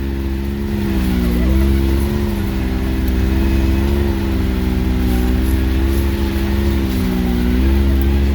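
Ford Excursion's engine running at low, fairly steady revs in four-wheel drive on an off-road trail, its pitch dipping slightly a couple of times, with a deep rumble underneath.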